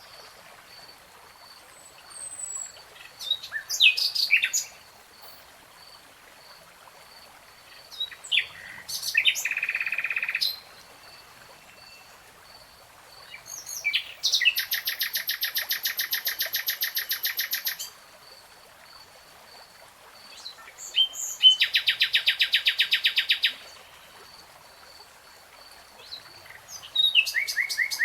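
A songbird singing separate phrases with pauses between them: short chirps and whistles, then two long, rapid, even trills lasting a few seconds each, the longest in the middle.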